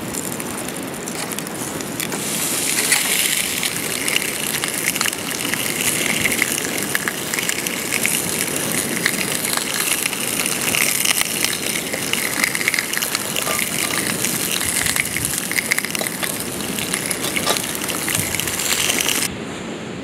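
Wood fire under a mini Dutch oven, crackling and hissing steadily with many small pops; the fire beneath the oven is burning strongly, which the baker suspects is too hot. The sound changes abruptly near the end.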